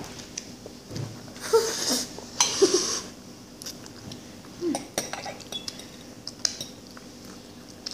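Metal forks clinking and scraping on a plate while instant ramen noodles are slurped, with two loud slurps between about one and a half and three seconds in.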